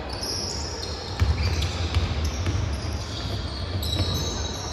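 Basketball bouncing on the court during play, a handful of sharp bounces with the loudest about a second in, mixed with short high squeaks of shoes on the floor.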